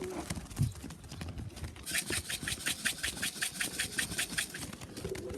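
A tin of pigeon feed being shaken to call a racing pigeon in to the loft: a quick rhythmic rattle, about nine shakes a second, starting about two seconds in and lasting about two and a half seconds.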